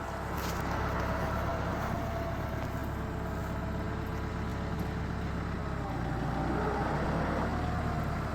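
A vehicle engine running steadily, a low even drone.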